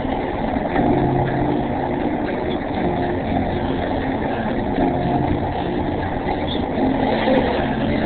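A motor vehicle's engine running steadily, with a few held humming tones that come and go.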